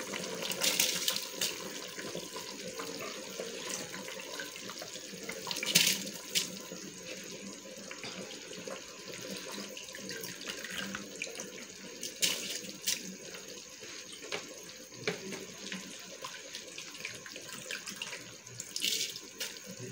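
Beef and tomato sauce boiling hard in an aluminium pot: a steady bubbling with a few brief, louder splashes. Near the end, washed rice is dropped into the boiling sauce.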